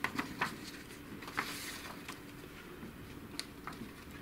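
Printed sheets of paper being handled and turned over: soft rustling with a few short crackles.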